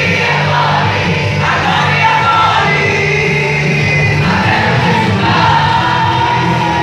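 A group of young voices singing a Portuguese-language worship song together over live instrumental accompaniment.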